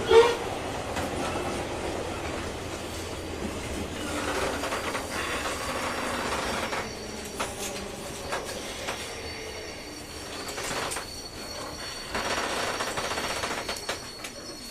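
Running sound inside a JR 201 series electric train's motor car: steady rail and wheel noise with scattered clacks over rail joints. There is a sharp loud knock just after the start, and a thin high steady whine through the second half.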